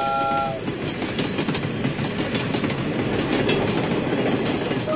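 Steam locomotive whistle sounding a chord of several notes that cuts off about half a second in, then the train running with a steady rumble and rapid irregular clicking of wheels on the rails.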